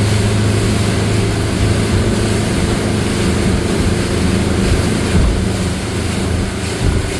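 Motorboat engine running steadily under way, a constant low hum with the hiss of wind and water rushing past.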